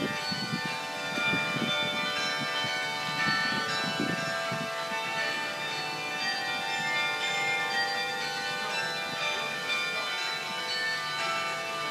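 Sather Tower's carillon playing a tune, many bell notes ringing and overlapping one another.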